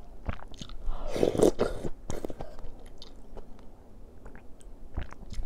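A person slurping thin noodles out of a bowl of seollangtang (beef bone soup), with one loud slurp about a second in, and chewing with small wet clicks through the rest.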